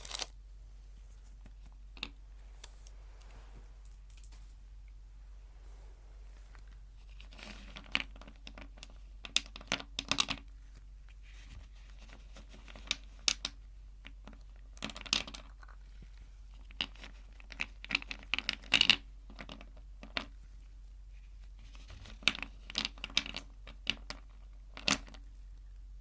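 Sweet wrappers being handled close to the microphone: crinkling and tearing in short, scattered bursts of crackle with quiet gaps between, busier in the second half.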